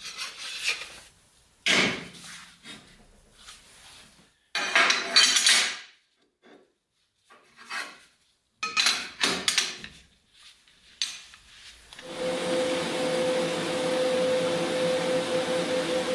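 Steel plates and square steel tube clanking and knocking against a steel welding table as they are handled and set in place, a series of sharp metal strikes over the first eleven seconds. About twelve seconds in, a welding arc strikes and runs with a steady hiss and a constant hum.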